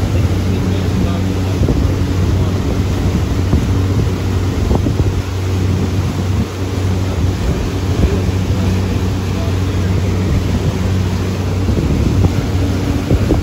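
Pontoon boat's outboard motor running steadily under way, a low steady hum, with wind buffeting the microphone and water rushing past the boat.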